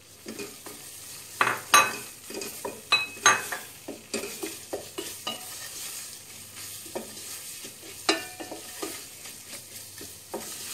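Chopped onions sizzling in melted butter and flour in a stainless steel pot, stirred with a wooden spoon that knocks and scrapes against the pot, with the loudest knocks a couple of seconds in.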